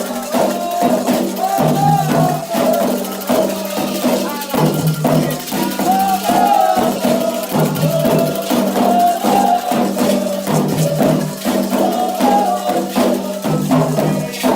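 Candomblé ritual music for Xangô: voices singing a chant over hand drums, with a rattle and other percussion keeping a steady rhythm.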